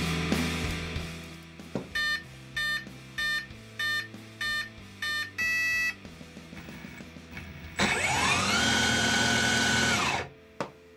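Background music fading out, then a hobby electric-skateboard ESC powering up: six short beeps about 0.6 s apart and a longer two-tone beep, the usual arming signal, with six beeps matching a 6S LiPo pack. About two seconds later the brushless outrunner motor whines up in pitch, runs steady for about two seconds driving the belt-driven wheel, and cuts off.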